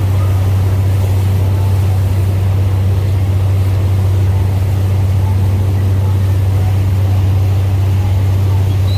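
Boat engine running at a steady speed: a deep, constant drone under an even rushing noise.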